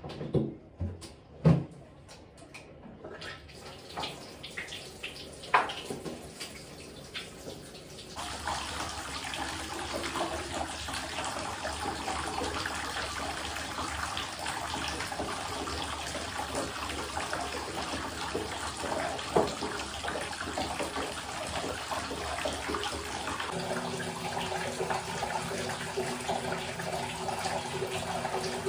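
A few knocks and clicks from handling things at a bathroom basin, then, from about eight seconds in, a sink tap running steadily. A low steady tone joins the running water near the end.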